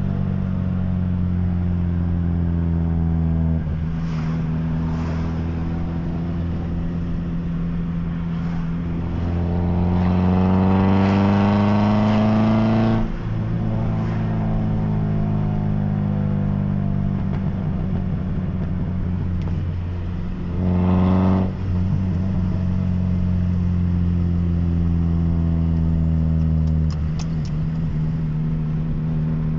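Opel Corsa B GSi's freshly rebuilt four-cylinder engine idling steadily. About a third of the way in it is revved slowly up and drops back sharply, and it is blipped briefly about two-thirds of the way through.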